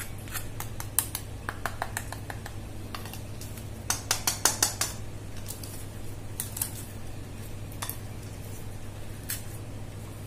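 A steel fork clinking against a steel plate while a crisp fried samosa is pressed and broken open by hand. The result is a string of sharp clicks and crackles, thickest around four to five seconds in, over a steady low hum.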